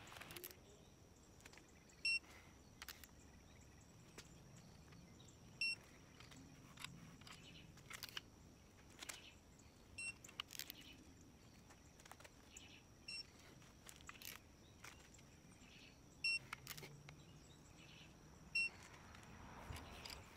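Digital torque-angle wrench giving about half a dozen short, high electronic beeps a few seconds apart, with faint ratchet clicks in between, while connecting-rod bolts are turned through an 85-degree angle after a 15 ft-lb first pass.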